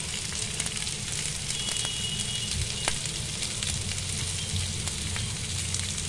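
Water at a full rolling boil in a steel pot, bubbling and crackling steadily, with two eggs hard-boiling in it.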